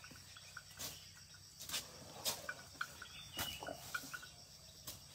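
Quiet outdoor ambience with faint, short insect-like chirps repeating and a few soft scattered clicks.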